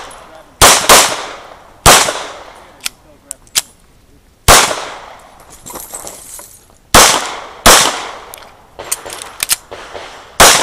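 CZ 75 SP-01 pistol fired in a USPSA stage run: seven loud shots in short irregular strings, two quick pairs and singles with a longer pause in the middle. Fainter sharp cracks are heard between the shots.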